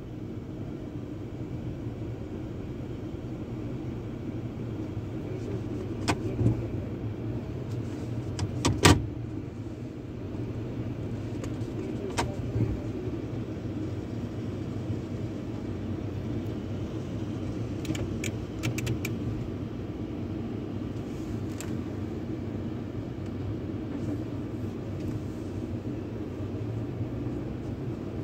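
Inside a pickup truck's cab as it moves into a tunnel car wash: a steady low hum from the idling truck and the wash equipment, broken by a few sharp clicks and knocks, the loudest about nine seconds in.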